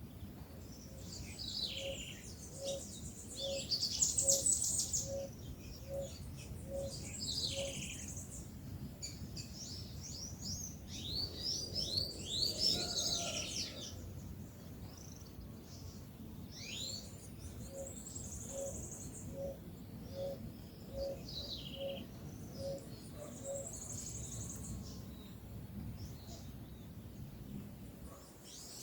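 Several birds calling and singing: high chirps, short trills and falling whistles coming throughout, busiest about four seconds in and again around twelve seconds in. Twice a soft low note is repeated about eight times, a little under a second apart, over a steady low background rumble.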